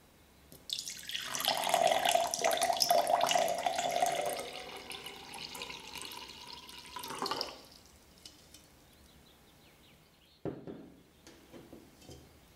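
Water running into a container, with a tone that rises in pitch as it fills; it stops after about seven seconds. A single sharp knock follows near the end.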